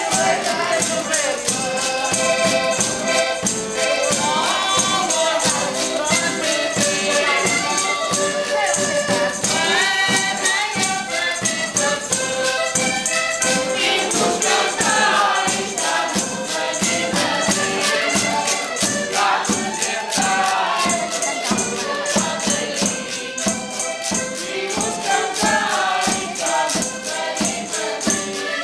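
Portuguese folk group singing together, accompanied by a bass drum and a tambourine keeping a quick, steady beat.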